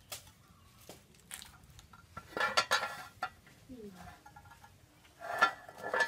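An aluminium cooking pot and its lid clattering with a metallic ring, twice: about two seconds in and again near the end.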